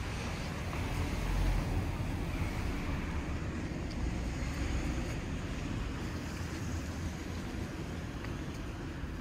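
Steady outdoor street ambience: a low rumble of road traffic with wind on the microphone.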